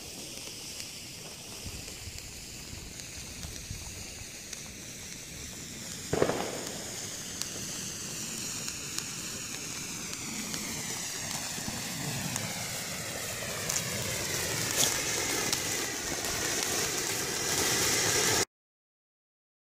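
Ground-fired fireworks, fountains and battery cakes, hissing steadily as they burn, with a sharp bang about six seconds in and a few small pops later. The hiss grows louder near the end, then cuts off abruptly.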